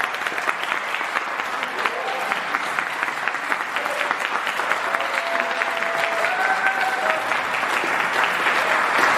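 Audience applauding, dense hand-clapping that grows slightly louder toward the end, with a few voices briefly audible in the middle.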